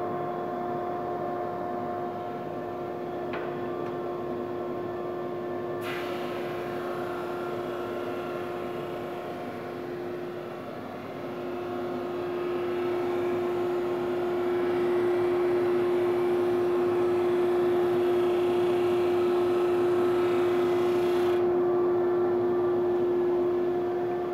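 Powermatic 22-44 drum sander running with a steady hum. About six seconds in, a rushing hiss joins it as the board is sanded under the drum; the hiss grows louder partway through and cuts off about three seconds before the end.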